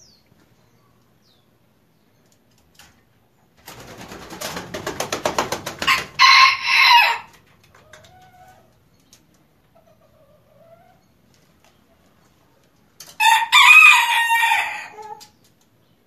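Bantam rooster crowing twice: a short crow about six seconds in and a longer one near the end. The first crow is preceded by a fast run of wingbeats that builds up for about two seconds.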